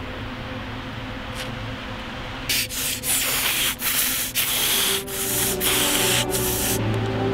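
A harsh rasping noise in about eight short, uneven bursts, starting about two and a half seconds in and stopping shortly before the end, over a low steady hum.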